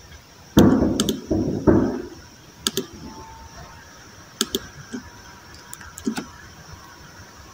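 Computer mouse clicks, several in quick pairs, over a faint steady hum. About half a second in there is a louder low thump and rustle, the loudest sound here, lasting about a second and a half.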